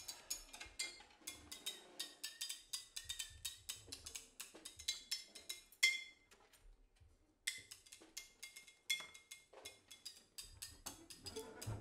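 Drum kit played softly with quick, light stick clicks and taps, with one louder ringing hit about six seconds in. The tapping stops for about a second and a half, then starts again.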